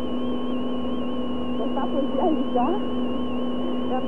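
Steady hum and whine of an old tape broadcast recording, one tone wavering slightly in pitch, with faint scattered shouts from the arena crowd as a weightlifter sets up at the bar.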